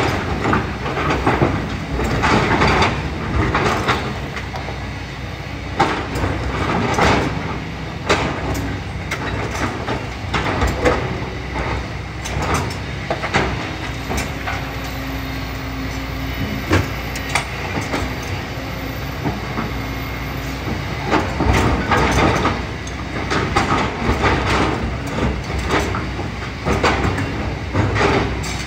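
Kobelco hydraulic excavator's diesel engine running under load, with the steel bucket repeatedly clanking, knocking and scraping against rocks and gravel as it digs.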